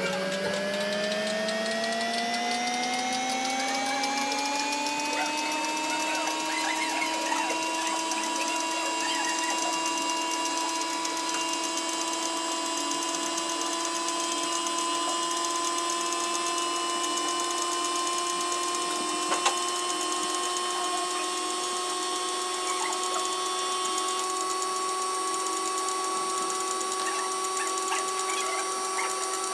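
A motor-driven machine whining as it speeds up, its pitch rising over the first six seconds or so, then running steadily at a constant pitch. A single sharp click about two-thirds of the way through.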